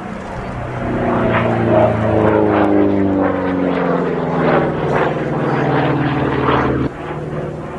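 Republic P-47 Thunderbolt's Pratt & Whitney R-2800 Double Wasp radial engine making a flypast. The engine note swells, then falls steadily in pitch as the aircraft goes by, and the level dips abruptly near the end.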